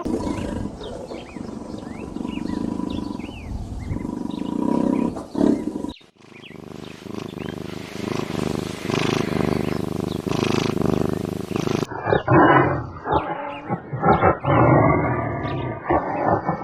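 Big cat roaring and growling, in three separate recordings cut together: the sound changes abruptly about six seconds in and again about twelve seconds in.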